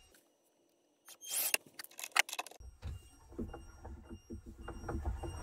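A ratchet wrench clinks against the jack, then cranks it in a run of short clicks. About two and a half seconds in a low rumble comes in: the gears and motor of the Schwintek in-wall slideout being turned as the slide is forced outward.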